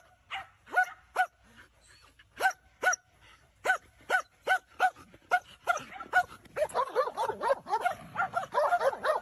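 Dog barking repeatedly in short, high-pitched barks, about two to three a second. From about two-thirds of the way through the barks come faster and overlap as a second dog barks along.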